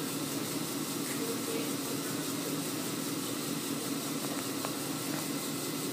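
Steady mechanical hum of shop background noise, with a couple of faint clicks.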